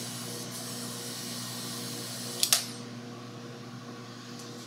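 Vacuum pump of an Aoyue 2703A+ rework station running for its desoldering gun, a steady hum with a hiss of air, cut off by a sharp click about two and a half seconds in; a softer hum carries on after.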